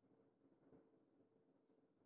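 Near silence: room tone with a very faint steady hum.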